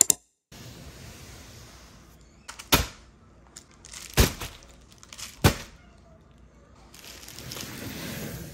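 A sharp click at the start, then three sharp clicks or knocks spaced a second or so apart, and a swelling crinkle of a plastic bubble mailer being handled and lifted off a cardboard box near the end.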